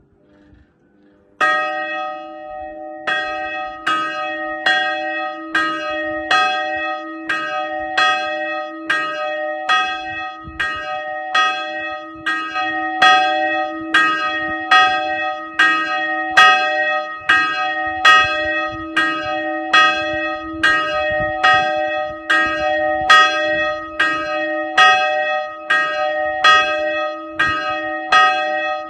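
A single chapel bell swinging in an open bell tower, its clapper striking a little more than once a second in an even rhythm, each stroke ringing on over a steady low hum. The first stroke comes about a second and a half in.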